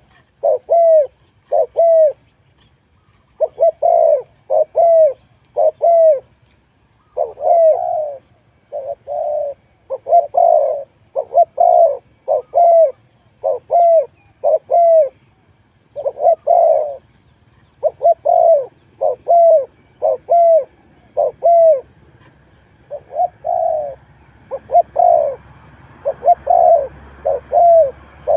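Spotted dove cooing over and over: short, downward-bending coos about once a second in runs, broken by brief pauses a few seconds in and about two-thirds of the way through. Faint high chirps sound behind it.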